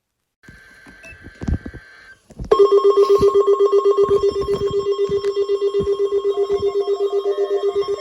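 Weather alert radio receivers going off for a Required Weekly Test. Faint steady data tones come first, then about two and a half seconds in a loud electronic alarm starts, pulsing rapidly about seven times a second like a ringing phone. A second, broken beep joins near the end.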